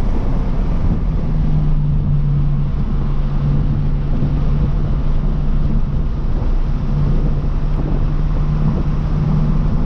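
2023 Toyota GR86's flat-four engine with the GR exhaust, running under steady power at fairly constant high revs, heard from inside the cabin over road and wind noise.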